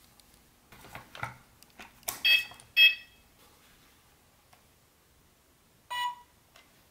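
Short electronic beeps from a battery-powered toy train set: two quick tones about two seconds in and a third one near the end, after some soft handling rustle.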